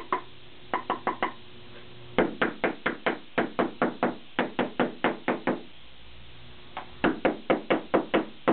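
Small hammer tapping rapidly on canvas wrapped over a wooden stretcher bar, to get the canvas down and even it out while stretching a giclée print. A few taps about a second in, then two quick runs of about four taps a second with a short pause between them.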